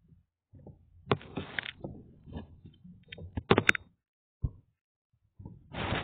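Phone handling noise: fingers and fabric rubbing and knocking against the phone's microphone in irregular scrapes and taps, with a short lull before a longer rub near the end.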